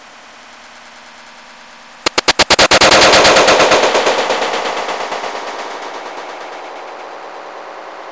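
A .22 pistol shot from a Walther P22, slowed down. About two seconds in comes a rapid stuttering crackle, then a loud, drawn-out report that fades slowly over several seconds.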